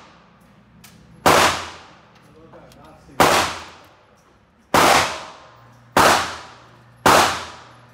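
Five sharp gunshot reports about one to two seconds apart, each followed by a short echo off the walls of an indoor range.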